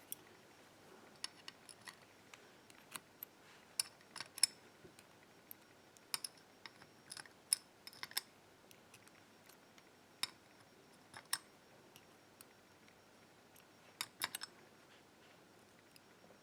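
Small metal clicks and ticks, irregular and scattered, as brass lock pins (serrated key pins, spool drivers) are handled and set back into the mortice cylinder's plug with tweezers, a few clustered in quick runs.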